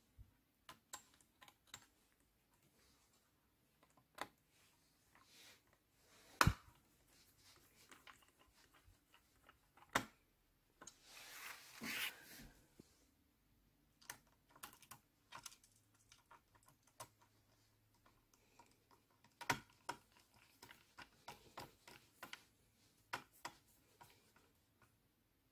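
Scattered small clicks and taps of hands working on an open laptop as its parts and drive are handled. There are a few louder knocks, one a little after 6 seconds, one at about 10 seconds and one near 20 seconds, and a short rustle about halfway.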